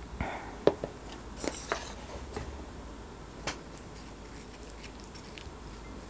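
An aluminium beer can set down on a wooden tray with a sharp knock, the loudest sound, followed by wooden chopsticks tapping and stirring in a ceramic bowl in a few light, scattered clicks as the egg yolk is mixed in.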